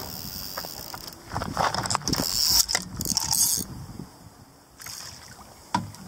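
Rustling, scuffing and scattered knocks of an angler snatching a carp rod off its rod pod rests and striking into a bite, with a sharper knock near the end.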